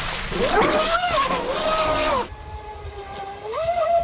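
Brushless electric motor of a Traxxas Spartan SR 6S RC deep-vee boat whining at high revs, its pitch dipping and rising again as the boat spins out. Water spray hisses through the first half of the whine. From about halfway the whine is quieter and lower, then climbs again near the end.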